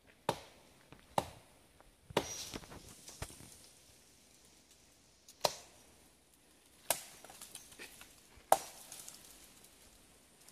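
Machete chopping through woody vines and brush: about six sharp, separate strikes at an irregular pace, the hardest near the end.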